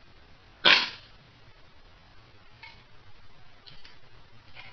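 A Colt Delta Elite airsoft pistol fires one shot about a second in, a single sharp crack, followed by a few faint clicks.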